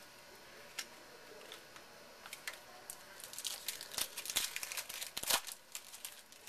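A foil trading-card pack wrapper being torn open and crinkled by hand. A few light clicks come first, then a dense spell of crinkling from about halfway through, loudest just before the end.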